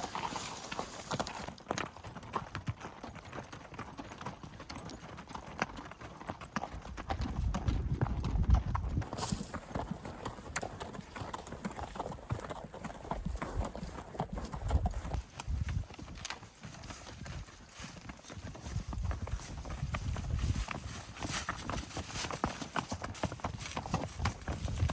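A string of horses walking, hooves clip-clopping in an uneven, continuous patter, with a few low rumbles at times.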